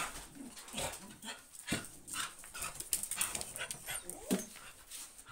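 Several dogs moving about on a tiled floor at a doorway, claws clicking and scuffling, with a short dog whimper about four seconds in.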